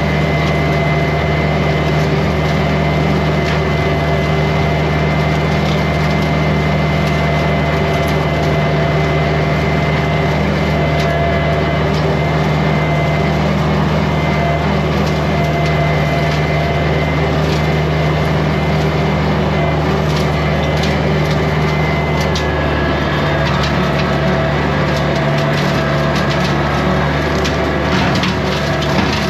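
Kubota compact diesel tractor running steadily under load, driving a rotary brush cutter, with scattered snapping and cracking as brush and sticks are cut and crushed under the deck; the cracking gets busier in the last third.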